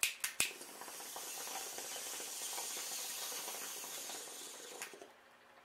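Three quick clicks, like a lighter being struck, then a steady hiss for about four and a half seconds as cannabis is lit and smoked, ending with one more click.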